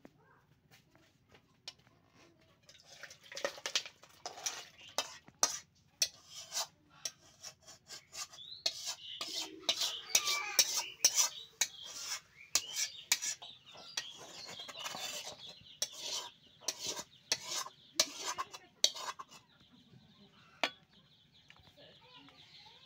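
A spatula stirring and scraping thick duck curry in an aluminium pot, with a run of clinks and knocks against the pot's metal. The clinks are busiest in the middle and die away near the end.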